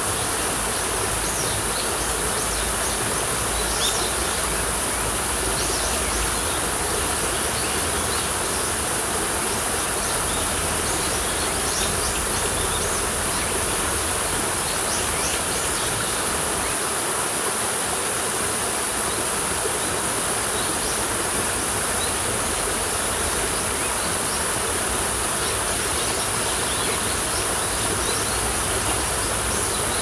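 Small stream cascade pouring over rocks, a steady rush of water. Scattered short bird chirps come and go over it, with a steady high-pitched insect drone behind.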